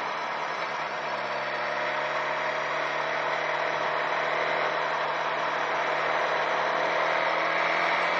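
Inline-four sport motorcycle engine running steadily on the move, its pitch and loudness rising slightly near the end as it gently picks up speed, with wind and road noise on the onboard microphone.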